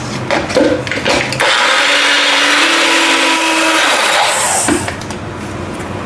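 Electric blender running for about three seconds, blending scrambled eggs, cocoa powder, honey and milk into a thick mousse. A few knocks come first, then the motor starts about a second and a half in and stops near the end.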